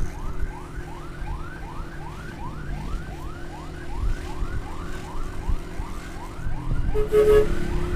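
An electronic siren in a fast yelp, about three short rising sweeps a second, over a low rumble. Near the end a steady beeping tone joins in.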